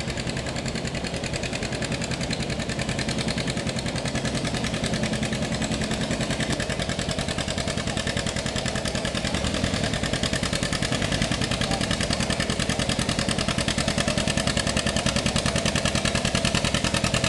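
John Deere 720's two-cylinder gasoline engine working under load on a pull, with a steady, even beat of exhaust pulses.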